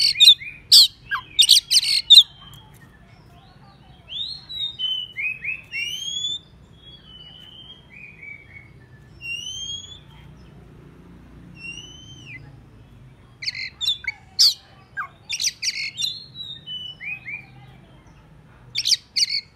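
Oriental magpie-robin singing a fired-up song that calls out rivals. Loud harsh, scratchy phrases open the song, then give way to quieter whistled notes that slide up and down. The harsh phrases return from about two-thirds of the way in and again near the end.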